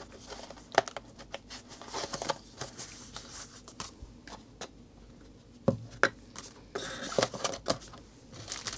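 A small cardboard kit box and its paper sleeve handled by hand as they are opened, with scattered sharp clicks and taps and brief paper rustles as the lid is lifted.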